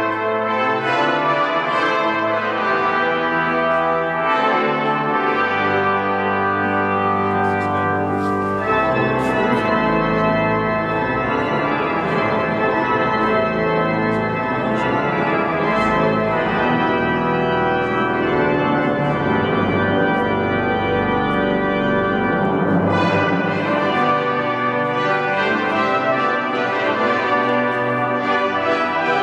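Cathedral pipe organ playing loud, full sustained chords. Deep bass pedal notes come in about nine seconds in and drop away after about twenty-three seconds.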